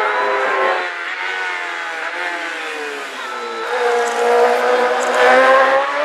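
Racing sidecar outfits at full throttle. One engine note falls in pitch about a second in, then another outfit's engine rises in pitch and grows louder as it comes closer, loudest near the end.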